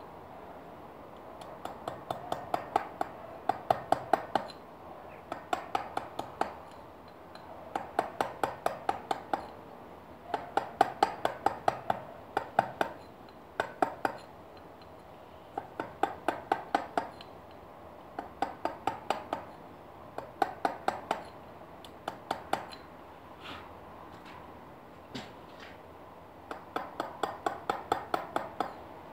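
Dummy mallet tapping a hand chisel into limestone in quick runs of light, ringing strikes, several a second, with short pauses between runs: fine detail carving of an outline.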